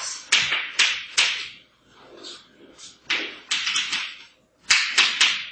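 Writing and drawing strokes on a lecture board: quick scratchy strokes in bunches, with a couple of sharp taps and a short pause in the middle.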